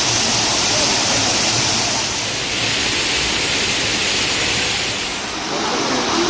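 Mountain stream rushing and splashing over rocks, a loud steady water noise whose tone shifts about two seconds in and again about five seconds in.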